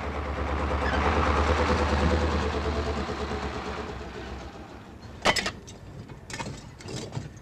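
A heavy truck drives past on a wet road, its engine hum and tyre hiss swelling and then fading away. From about five seconds in come a few sharp, separate knocks as a worker strikes at a stack of hollow clay blocks.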